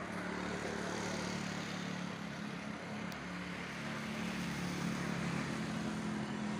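A motor vehicle's engine running steadily nearby, with a low hum.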